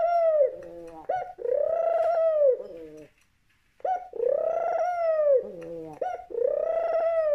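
A collared dove cooing at its own reflection, repeating a two-part coo about three times: a short note followed by a longer note that rises and falls, with brief pauses between calls.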